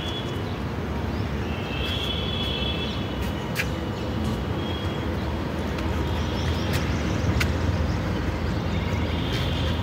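Steady low rumbling outdoor noise, with birds chirping faintly over it a few times.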